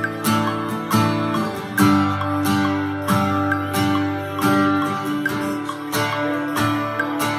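Breedlove acoustic guitar strumming chords in a steady, even rhythm, each strum ringing on into the next.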